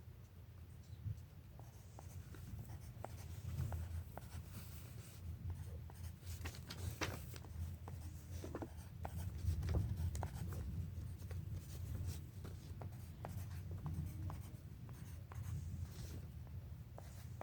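Pencil drawing on paper: many short scratching strokes and light taps as small shapes are sketched, over a low rumble of the paper and book being handled on the table.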